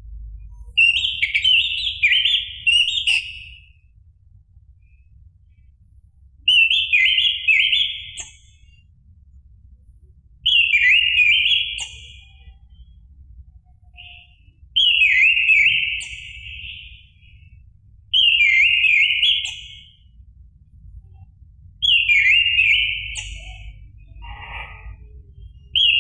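Orange-headed thrush singing: a run of loud, rich warbling phrases, each lasting a second or two and repeated about every four seconds with short pauses between.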